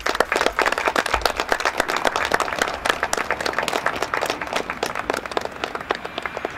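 A small audience applauding, the clapping thinning out near the end.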